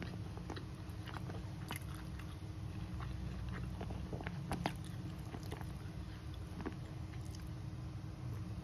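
Close-up mouth sounds of a person chewing a handful of rice and duck: scattered soft clicks and smacks over a steady low hum.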